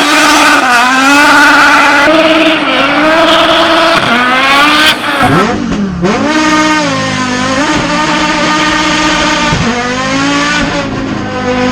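Audi RS3 2.5-litre turbocharged inline-five engine in a hillclimb Golf race car, driven hard. Revs climb and drop again and again through quick gear changes, with a deep drop about five seconds in before it pulls up again.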